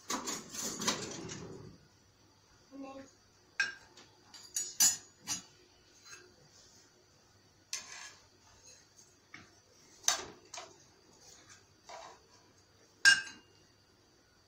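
A kitchen utensil clinking and scraping in a frying pan: a rustling clatter in the first two seconds, then single sharp knocks a second or two apart, the loudest near the end.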